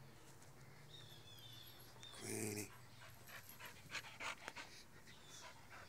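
An American pit bull panting in quick rough breaths while being petted, with one short low vocal sound about two seconds in.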